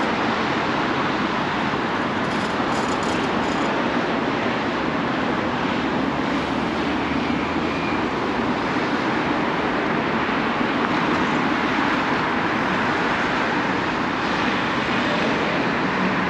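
Steady wash of city street traffic noise, vehicles running past in a continuous rush with no single pass standing out.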